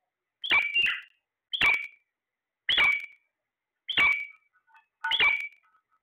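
Caged Alexandrine parakeets giving five loud, harsh calls, each short and sharp-edged, about one a second.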